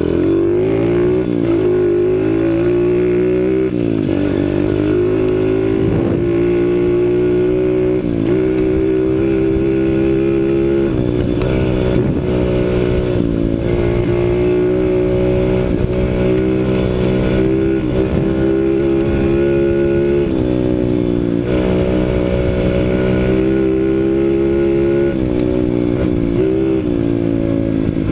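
A CRZ 125 Pro pit bike's engine running under load. Its pitch climbs and falls over and over as the throttle is opened and closed, with short drops in pitch every few seconds.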